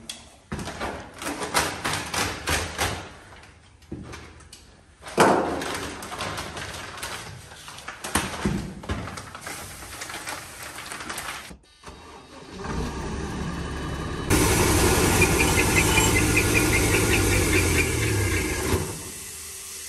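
Sacks of blasting abrasive rustling and being poured into the hopper of an Aquablaster blasting machine, in irregular bursts. After a short break about halfway through, a JCB Fastrac tractor's diesel engine starts and runs steadily, then jumps sharply louder a couple of seconds later as it drives the tractor-mounted Aquablaster Varimount 350 blasting unit.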